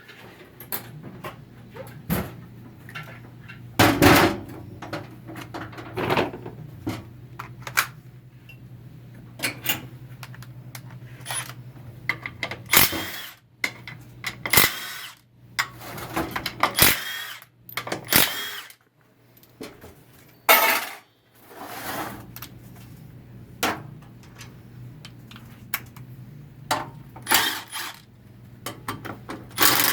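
Hand tools and metal transmission parts clinking and knocking at irregular intervals, some strikes ringing briefly, while a 4L60E automatic transmission is taken apart, over a steady low hum.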